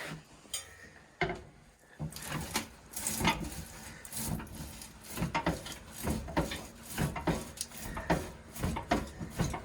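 Irregular knocks, clunks and scraping of snow plow mounting parts being handled and shifted into place on a utility vehicle, starting about a second in.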